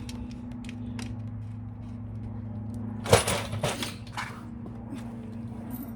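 Hands handling parts and wiring: a few light clicks and a short burst of rustling clatter about three seconds in, over a steady low hum.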